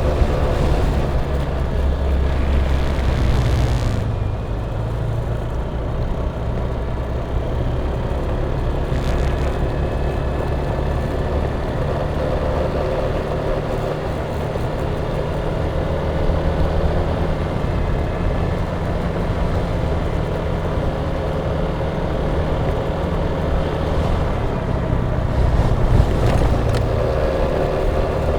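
Yamaha Tricity 155 three-wheeled scooter's single-cylinder engine running steadily under way on a test ride, heard with road and wind rumble that is heaviest in the first few seconds.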